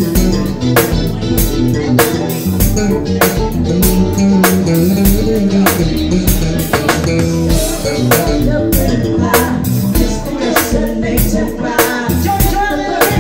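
Live band playing with electric guitar, bass guitar and drum kit, the drums keeping an even beat. A woman's voice comes in singing near the end.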